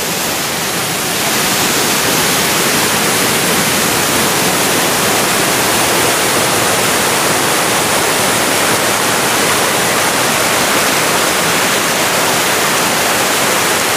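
Small river waterfall: water pouring over a low rock ledge into a pool, a steady rushing that grows a little louder about a second in.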